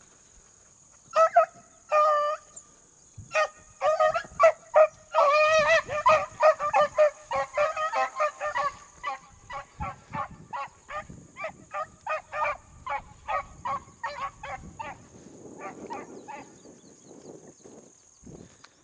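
Beagles baying while running a rabbit: short repeated bawls from several hounds overlapping, thickest about four to nine seconds in, then thinning out and fading after about ten seconds. A steady high insect buzz runs underneath.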